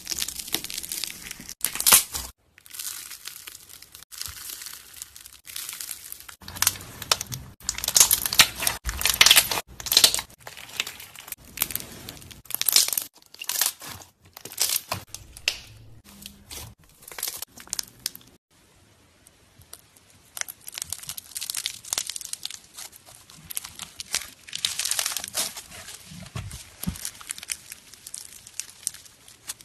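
Crunchy slime packed with beads being squeezed, pressed and stretched by hand: dense crackling and crunching with sharp pops, in a run of short takes with brief breaks between them.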